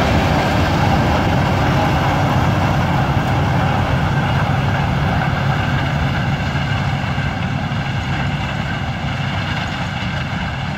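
Claas Lexion 7700 combine harvester running under load while threshing maize, a steady heavy drone from its engine and threshing machinery with a few faint high tones. It slowly fades as the machine moves away.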